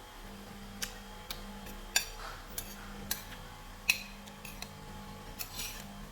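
Eating utensils clicking and clinking against tableware, about eight separate sharp clicks, the loudest about two and four seconds in.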